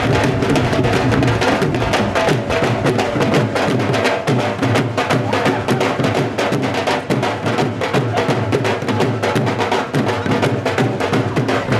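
Live dhol drumming: several dhols played together in a steady, driving bhangra rhythm of rapid strokes.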